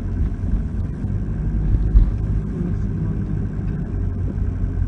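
Steady low rumble of a vehicle driving, engine and tyre noise heard from inside its cab, with a brief louder bump about two seconds in.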